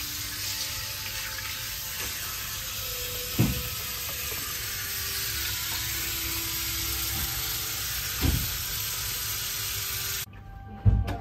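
Water running steadily from a tap into a tiled foot-wash basin as feet are washed, a hiss that cuts off suddenly about ten seconds in. Two dull knocks sound over it.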